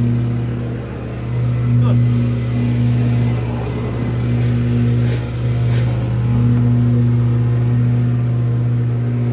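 A steady low mechanical drone, swelling and easing slightly, with a couple of faint clicks about five and six seconds in.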